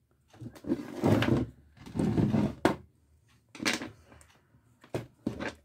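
Handling of an electrical cable and a length of copper wire on a tabletop: two rustling scrapes of about a second each, then a shorter one and a couple of sharp knocks near the end.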